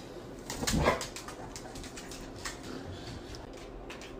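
A dog gives one short whining grumble about half a second in, its pitch bending up and then down: a protesting answer to being refused a treat. A few faint clicks follow.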